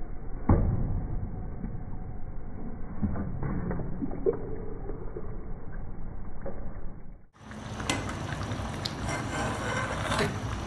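A metal ladle stirring chicken curry in an aluminium pot, scraping and knocking against the pot, with a sharp knock about half a second in. The sound drops out briefly about seven seconds in and comes back brighter, the ladle clinking on through the thick gravy.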